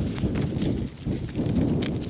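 A run of dull thuds and small knocks from hand work with wooden poles and digging in earth.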